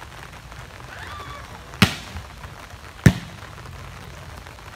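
A volleyball struck hard by hand twice, a little over a second apart: two sharp slaps, the second the louder.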